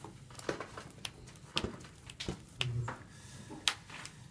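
Irregular sharp clicks and taps of sleeved trading cards being handled and laid down on a tabletop playmat, with a short low hum a little past the middle.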